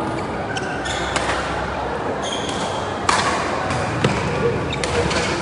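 Badminton rally in an echoing sports hall: sharp racket strikes on the shuttlecock and footfalls on the court, with a brief high shoe squeak about two seconds in.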